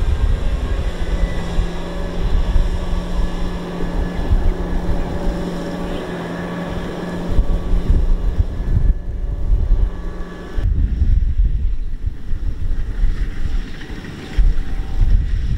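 Kubota M6040SU tractor's four-cylinder diesel engine running hard while its rear wheels spin in deep mud, with wind buffeting the microphone. The sound changes abruptly about ten seconds in.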